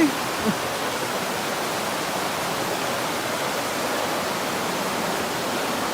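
Steady rushing noise, even and unchanging throughout.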